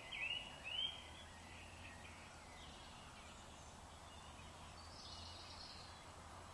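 Songbirds singing in a wood at dusk: a few louder curving phrases in about the first second, then fainter, more distant calls.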